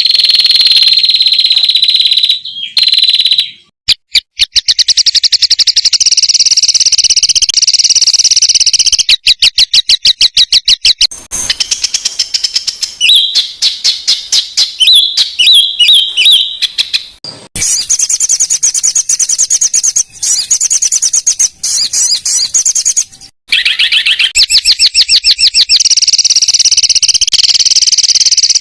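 Songbird masteran song for training competition birds: loud, dense, rapid-fire trills and chattering phrases, high-pitched, in several stretches broken by short gaps.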